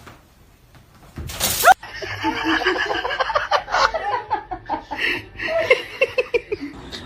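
A short, loud noisy burst about a second in, then laughter that runs on in rapid, stuttering bursts.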